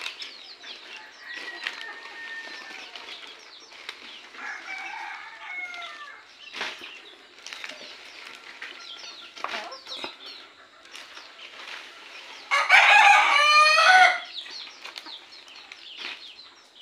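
Desi (country) chickens clucking and calling, with a few short knocks and rustles. About three-quarters of the way through, a rooster crows loudly once for about a second and a half.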